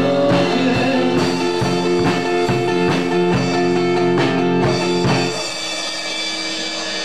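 Live band playing rock: guitar chords over a drum kit. The drumming stops about five seconds in, leaving held notes ringing more quietly.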